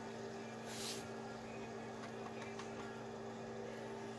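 Steady electrical hum, with a brief hiss about a second in and a few faint ticks.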